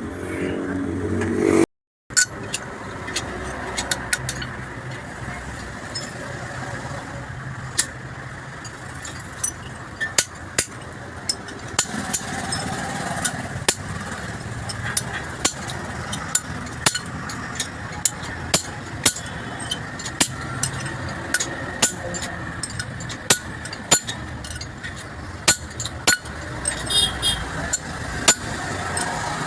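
Irregular sharp metallic clicks and taps of tools and Tata GB 60 gearbox parts being handled during assembly, coming more often in the second half, over a steady rumble of vehicles running in the background. The sound cuts out completely for a moment about two seconds in.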